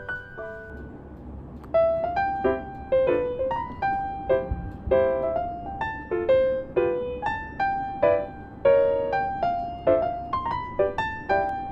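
Background music: a soft piano melody of separate notes, each ringing and fading, with a low thump about four and a half seconds in.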